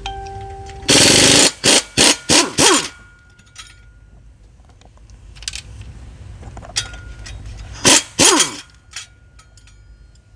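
Impact wrench hammering on flex plate bolts: one longer burst about a second in, then several short bursts, and another short cluster near the end, each winding down with a falling whine as the trigger is released.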